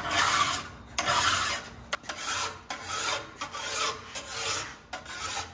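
Flat metal file drawn in long strokes along the side of a steel chainsaw bar's rail, a little over one stroke a second. The file is planing the worn 32-inch bar flat, taking off the rolled-over edge metal where the rails have spread.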